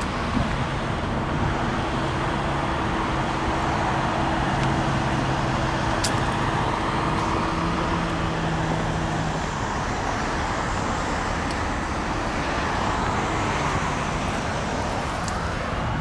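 Steady road traffic noise, with a low steady hum through roughly the first half.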